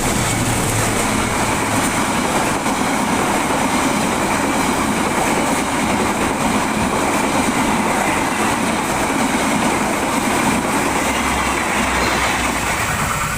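A train passing close by over a level crossing: a loud, steady rumble and rattle of wheels on rails, easing off near the end.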